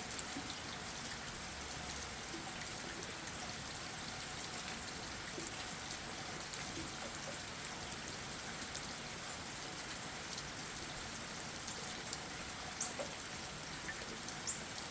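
Steady rain pattering on leaves and ground, with many small drop ticks and a few louder single drops near the end.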